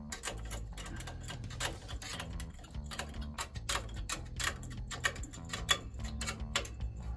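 Small metal clicks and taps of a hand tool and cable fittings at the manual choke mechanism of an IDF downdraft carburettor, irregular and several a second.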